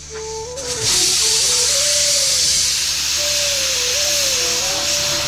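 Loud sizzling hiss of food frying in hot oil, starting suddenly about a second in and then holding steady.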